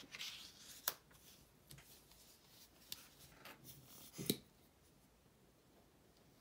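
Sheet of paper rustling and being handled on a cutting mat, with a few small clicks and one sharper knock about four seconds in, then near quiet.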